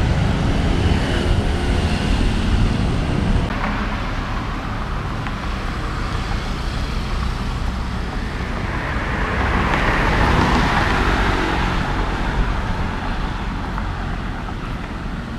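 Road traffic: a steady low rumble of cars and motorbikes on a city road, with one vehicle passing close by, loudest about ten seconds in.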